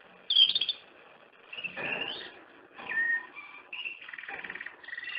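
A woman's high-pitched cries as she fights or attacks: a series of short, shrill shouts, about four or five in quick succession, the last one longer and wavering.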